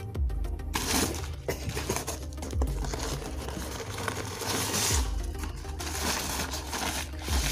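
Crumpled newspaper packing rustling and crinkling as hands dig through it in a cardboard box, in irregular handfuls.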